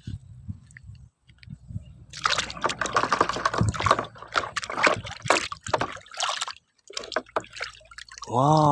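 Water sloshing and trickling as a plastic toy pistol is washed, with short clicks and knocks of the plastic being handled. The water is busiest from about two seconds in until near the end.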